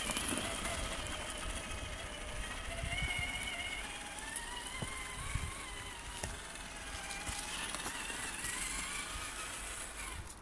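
Electric motor and gear drive of a Traxxas TRX-4 1979 Ford Bronco RC crawler whining, the pitch rising and falling with the throttle as it drives.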